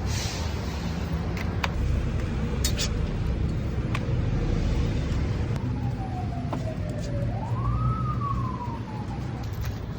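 Steady street-traffic rumble with a siren wailing once in the second half: the tone slides down, swings up, then falls away. A few light clicks.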